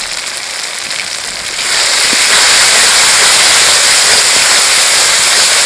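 Tomato, chili and ginger masala sizzling steadily in oil in an aluminium kadai, the masala being fried down. The sizzle turns louder about a second and a half in, as the spices are stirred through.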